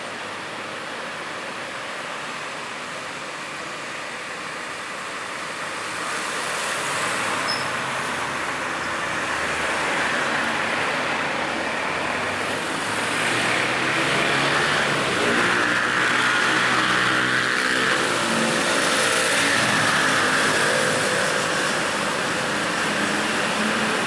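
Road traffic passing on a busy street: a steady hiss of tyres and engines that grows louder about six seconds in, as vehicles with audible engine hum pass close by through the middle and later part.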